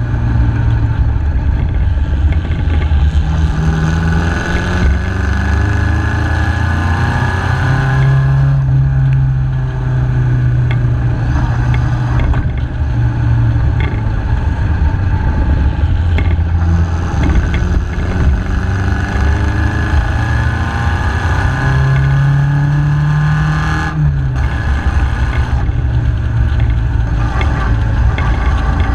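MG KY Special's engine running under way, heard from a camera mounted on the open car. Its pitch climbs under throttle and falls back several times, dropping sharply about five seconds before the end.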